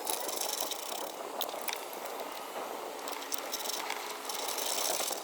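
Small clicks and rattles of hand tools and parts over a steady hiss, as a wiring-harness relay is fastened to a bolt in an engine bay.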